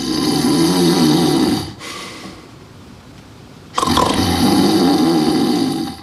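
A man snoring loudly: two long snores of about two seconds each, with a quieter breath between them.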